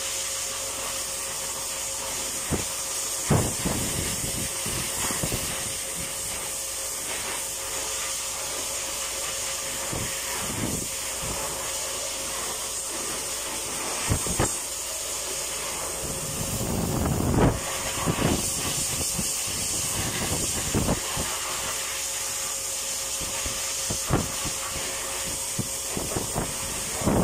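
Hose-fed pet dryer blowing a steady hiss of air onto a wet cat's fur, with a faint steady tone underneath. A few short bumps come through, the largest about two-thirds of the way in.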